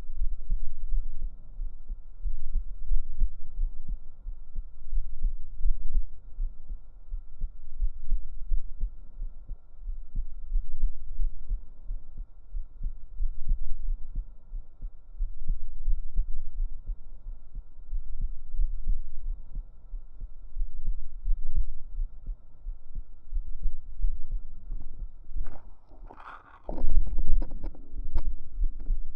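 A deep human heartbeat recorded with microphones pressed close to the chest, a steady low thudding that swells and fades every couple of seconds, under a faint steady high hum. Near the end a brief, louder, brighter sound cuts in over the beat.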